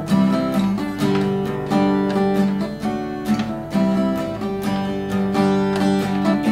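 Acoustic guitar strummed in a steady rhythm, chords changing every second or two: the instrumental lead-in to a song, before the singing starts.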